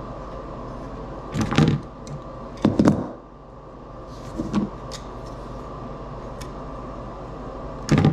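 A few sharp clicks and knocks as a hand tool and the plastic housing of a solar post light are handled and set against each other. Two louder knocks come close together about one and a half and three seconds in, a lighter one follows, and another comes right at the end, over a steady background hum.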